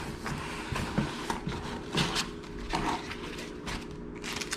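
Packaging and small parts being handled while unboxing: a series of short rustles and light knocks, several separate strikes, over a faint steady hum.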